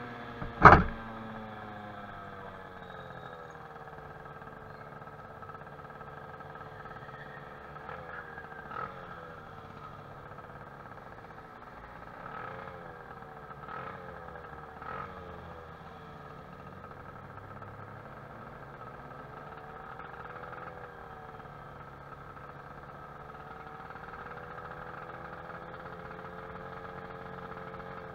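Tuned Stage6 Racing 23hp High End two-stroke scooter engine on a Baotian Falcon 50R, heard on board. It winds down as the scooter slows, then idles with several short throttle blips; the rider says it is running a bit rich. A sharp knock about a second in is the loudest sound.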